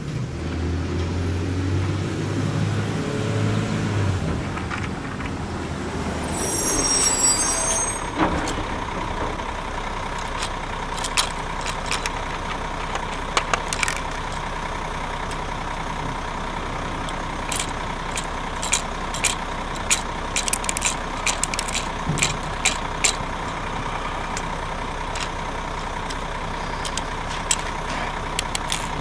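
Garbage truck sound: an engine running low for the first few seconds and a short air-brake hiss about seven seconds in. A steady whine follows, with many scattered sharp clicks.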